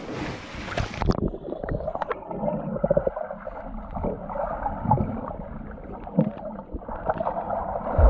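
A splash as several people jump into a swimming pool. The sound then turns to the muffled underwater sound of a submerged action camera: bubbles gurgling and the dull thuds of swimmers kicking past.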